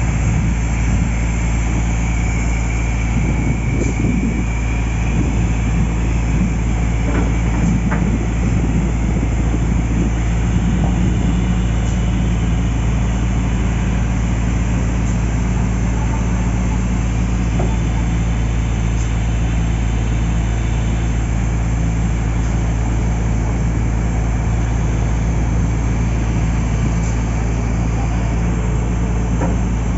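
Heavy machinery diesel engine running steadily at a low, even hum.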